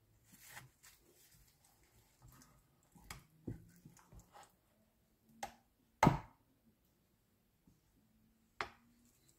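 A metal spoon scooping baked peach cobbler out of a ceramic baking dish: soft scraping through the pastry crust, broken by about five sharp clinks of the spoon against the dish and plate. The loudest clink comes about six seconds in.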